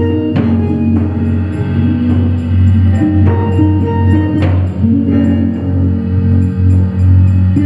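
Live improvised experimental music: six-string electric bass and electric guitar hold sustained notes over a steady low drone, while a drum kit adds occasional hits with ringing tails, one about half a second in and another around four and a half seconds in.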